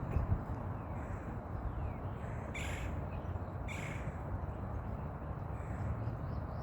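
A bird gives two harsh, raspy calls about a second apart, with a few faint high chirps from other birds over a steady low rumble.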